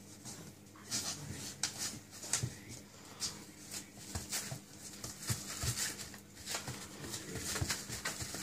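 Staffordshire bull terrier puppy scrambling round after its tail on a paper puppy pad: irregular crinkling and scrabbling of paws and claws on the pad, in quick uneven bursts.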